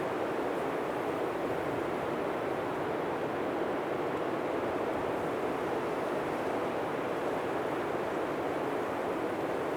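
Blizzard wind blowing steadily, an even, unbroken rush of noise with no distinct gusts or lulls.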